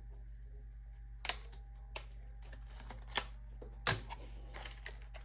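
A few sharp clicks and light rustling of toy cards and plastic pieces being handled as a pack of cards is opened, over a steady low hum.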